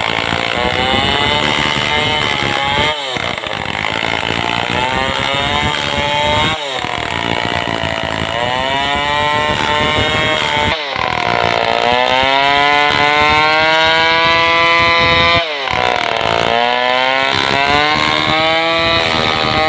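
Stihl 070 two-stroke chainsaw running hard while ripping a log lengthwise. Its pitch sags and recovers under load, with a few brief drops in engine speed.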